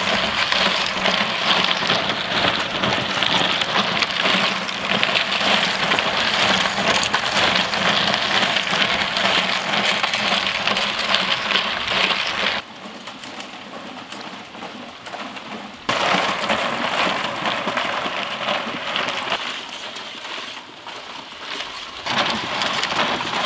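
A metal scraper shaves frozen ice cream off a rotating chilled drum, making a continuous dense crackling rasp. The sound drops away sharply about halfway through for about three seconds, and again for a couple of seconds near the end.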